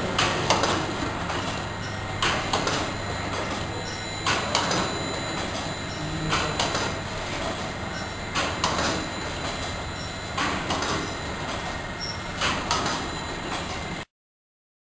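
Mono carton packing machine running: a steady mechanical noise with a sharp clack about every two seconds as it cycles. The sound cuts off suddenly near the end.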